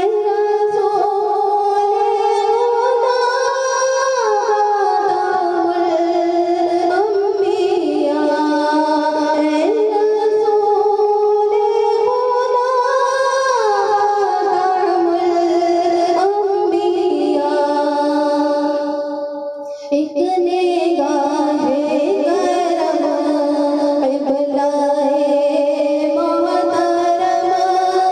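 A woman singing an Urdu naat, a devotional song in praise of the Prophet, solo into a microphone, with long held and sliding notes. There is a short break for breath about twenty seconds in.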